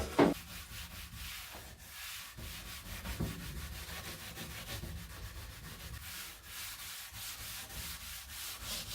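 A damp scouring pad with cream cleanser scrubbing a plastic computer case in quick repeated back-and-forth strokes, working off the discoloration left by a failed retrobrite.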